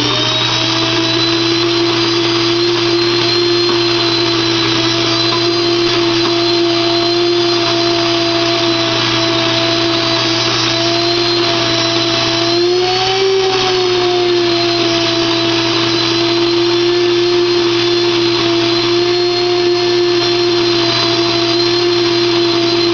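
Blendtec Kitchen Mill electric grain mill running loud while grinding wheat into flour: a steady high motor whine over a rushing hiss. About 13 seconds in the pitch rises briefly, then settles back.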